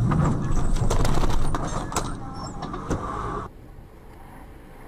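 Traffic noise from a dashcam: low vehicle rumble with scattered clicks and knocks. It cuts off suddenly about three and a half seconds in to a much quieter, steady background noise.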